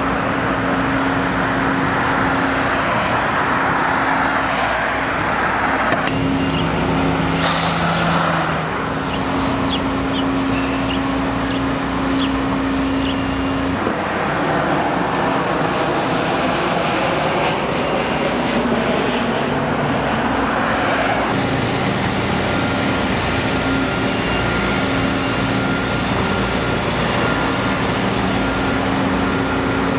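Steady motor-vehicle and road-traffic noise, a continuous rumble with a low engine hum whose character shifts abruptly about six, fourteen and twenty-one seconds in.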